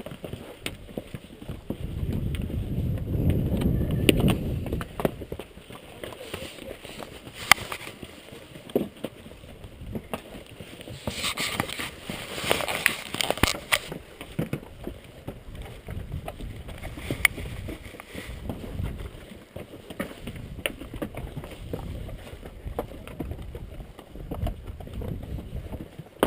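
Strong gusty wind buffeting the microphone, a low rumble that swells and fades, with a hissing gust about halfway through. Scattered sharp clicks and knocks run underneath.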